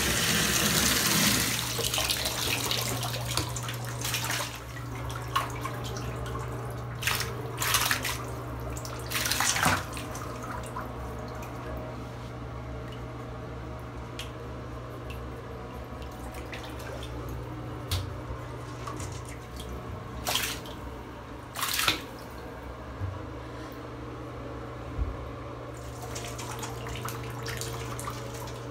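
Shallow bathwater in a bathtub lapping and splashing as two guinea pigs paddle through it, with a rush of water in the first second or so and several short, sharp splashes scattered through. A steady low hum runs underneath.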